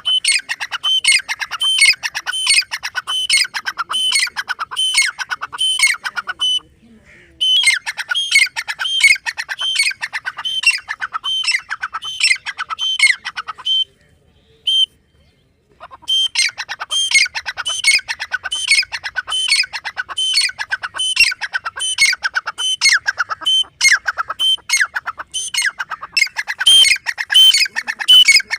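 Grey francolin calling: a loud, fast, unbroken run of shrill repeated notes, with a short break partway through and a pause of about two seconds in the middle before the calling resumes.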